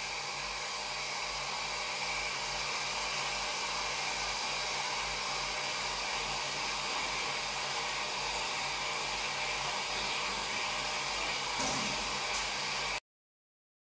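Steady, even background hiss with no cat calls in it, a faint knock or two near the end, then the sound cuts off suddenly.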